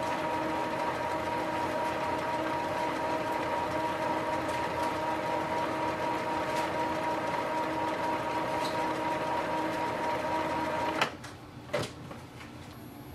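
Epson inkjet printer running its printhead cleaning cycle: a steady motor whir that stops about eleven seconds in, followed by two short clunks from the mechanism.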